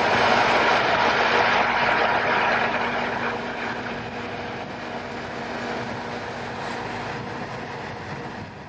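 Crawler crane's diesel engine running with a steady hum while it lowers a sailing yacht in slings, loudest for the first couple of seconds and then easing off.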